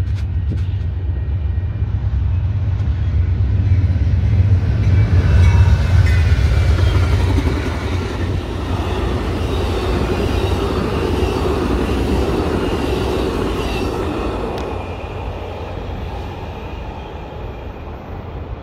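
Amtrak passenger train of Superliner bilevel cars passing: a heavy low rumble and the noise of wheels on rail, with faint high tones. It is loudest about five or six seconds in and fades toward the end.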